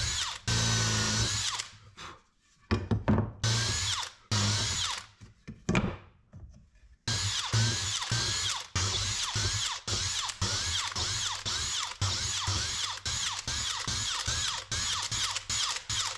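Cordless drill boring into a wooden rail, run in a few short bursts and then pulsed on and off about three times a second, its whine dropping in pitch with each pulse as the bit loads up in the wood.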